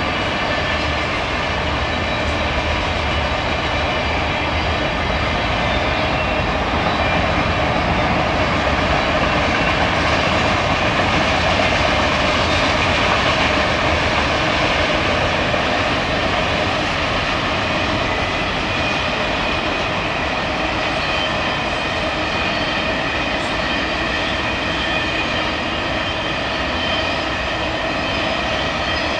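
Freight train of autorack cars rolling steadily past: continuous wheel-on-rail noise with steady ringing tones running through it.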